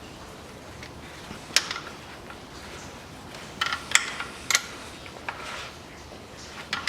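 A few sharp metallic clicks and clinks spread over several seconds, from tools and engine parts being handled as a hose is taken off an engine.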